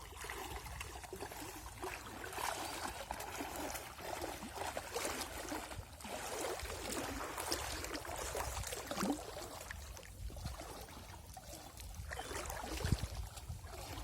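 Water splashing and sloshing irregularly, with a low rumble rising near the end.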